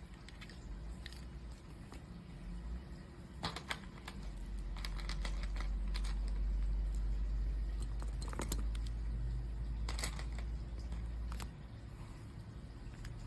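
Plastic Lego pieces clicking and rattling as they are handled and pressed together, with scattered sharp clicks. A low rumble swells up about four seconds in and drops away near the end.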